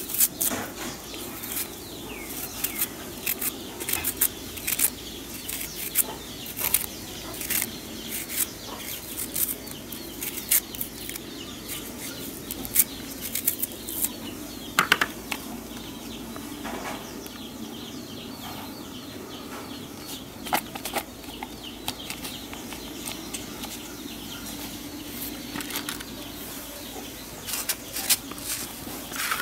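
Knife cutting a raw onion by hand, a run of irregular crisp cuts and snaps, a few a second, as slices drop into a small plastic pot.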